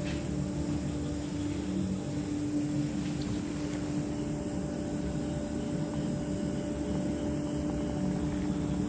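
A steady mechanical hum with a low rumble beneath it, unchanging throughout.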